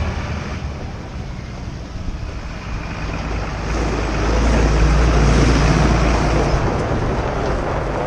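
Farm machinery engine running with a low rumble and a rushing noise. It swells about halfway through, then eases off near the end.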